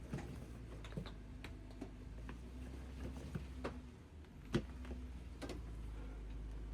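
Jeep engine running low and steady while crawling over rock, with scattered clicks and knocks; one sharper knock stands out about four and a half seconds in.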